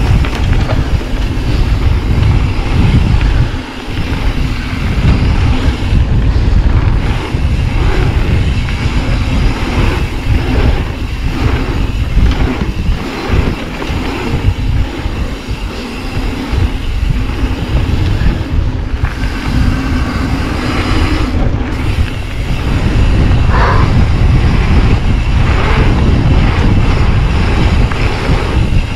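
Mountain bike descending a trail, with wind buffeting the action camera's microphone, tyres rolling over the dirt and frequent rattles and knocks from the bike over bumps.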